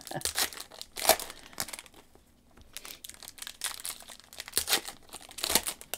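Foil wrapper of a Merlin Chrome soccer card pack crinkling and tearing as gloved hands open it and pull out the cards: a series of short crackles with a brief lull about two seconds in.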